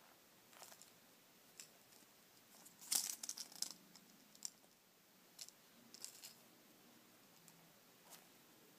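Faint handling noise: soft rustles and crinkles as hands squeeze and turn over foam squishy toys and their tags, with a brief cluster of louder crinkles about three seconds in.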